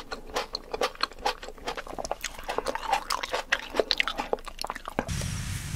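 Biting and chewing raw tomatoes: a quick, dense run of small crisp clicks and crunches, stopping about five seconds in.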